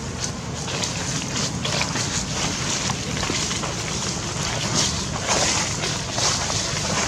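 Dry fallen leaves crunching and rustling underfoot in a dense run of short crackles, over steady wind noise on the microphone.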